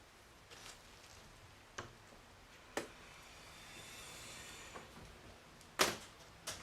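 A few scattered sharp clicks and knocks, a second or so apart, the loudest near the end, over a faint hiss.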